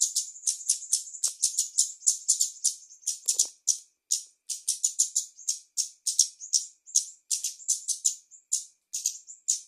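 Female kemade bird chirping in a fast, unbroken run of short, sharp, high notes, about four or five a second: the rapid 'konslet' (short-circuit) style of chirping.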